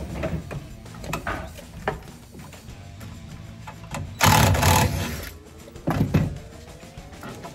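Cordless drill driving a screw to fasten a PVC condensate drain pipe to wood framing: one loud burst of about a second near the middle, a shorter one soon after, with scattered handling knocks on pipe and wood earlier.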